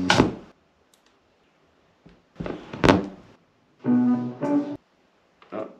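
Stylus of an Audio-Technica Sound Burger portable turntable set down on a playing record with a sharp thump about three seconds in. Short bursts of music follow, the longest about a second, each cutting off abruptly as the tone arm is bumped or lifted.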